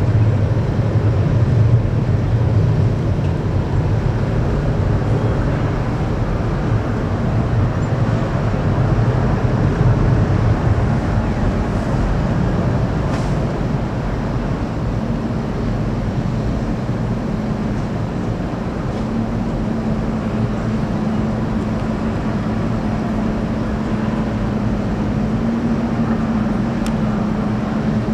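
Boeing 737 jet engines running at takeoff power on departure, a steady, loud rumbling noise. A steady low hum joins in about halfway through.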